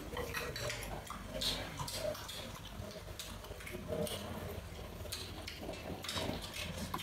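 Two people eating with chopsticks: chewing and smacking mouth sounds, with scattered light clicks of chopsticks against a china rice bowl and a metal bowl.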